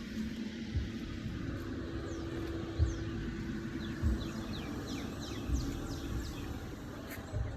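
Outdoor ambience: a bird gives a run of quick downward-sliding chirps in the middle, over a steady low hum and irregular low rumbles.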